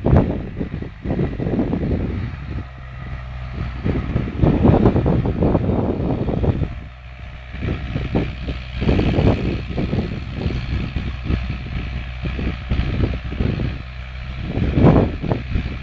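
David Brown 1290 tractor's four-cylinder diesel engine running steadily under load while pulling a two-furrow reversible plough in first gear, high range. Irregular loud rushes of wind noise on the microphone come and go over the engine.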